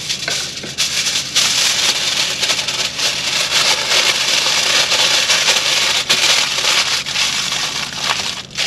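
Aluminium foil crinkling and crackling as it is folded and scrunched by hand around a potato.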